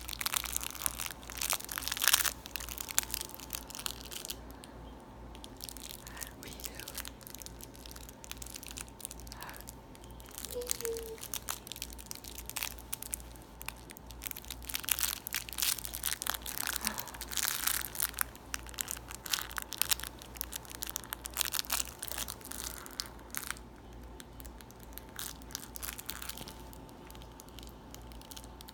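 A baby's fabric-and-plastic butterfly toy crinkling and crackling in irregular spells as the baby squeezes and chews it, with quieter stretches between.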